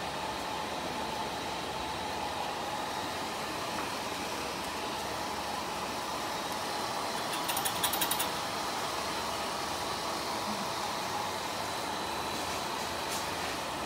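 Pet hair dryer running steadily while a long-haired dachshund is dried: an even rush of air with a faint high whine. About halfway through comes a brief burst of rapid ticking.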